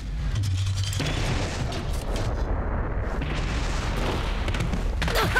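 Explosion and crashing-destruction sound effects over a continuous deep rumble as a giant robot is wrecked, with a sharp blast and a falling sweep about five seconds in.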